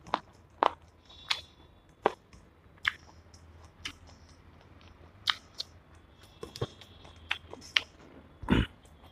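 Close-miked eating by hand: chewing rice and chicken curry, with scattered sharp wet clicks and smacks and fingers working the rice on a steel plate. A heavier thud comes near the end.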